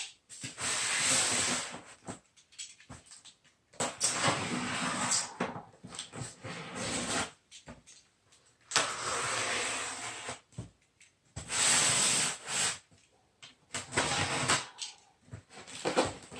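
Packaging being handled as a box is opened: rustling and scraping of cardboard and plastic wrapping, in about five bursts of a second or two each with short pauses between.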